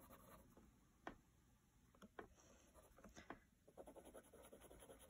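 Faint scratching of a colored pencil pressed hard on a paper coloring card, worked in small circles, with a few sharper strokes about one, two and three seconds in.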